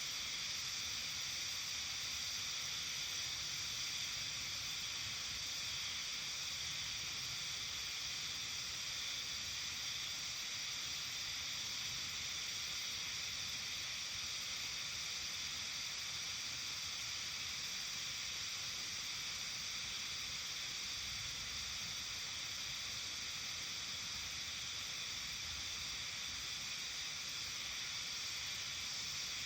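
Steady, unbroken high-pitched chorus of insects, a dense shimmering hiss with no pauses, over a faint low rumble.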